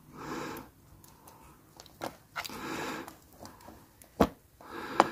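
Close-up handling of a Hornby OO gauge locomotive chassis and its small plastic and metal valve gear parts while the pistons are fitted: soft rustles and small clicks, with one sharp click a little after four seconds in.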